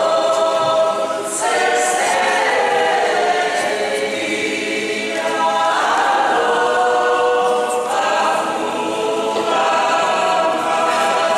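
Small mixed choir of women's, girls' and men's voices singing unaccompanied in harmony, in long held notes with short breaks between phrases.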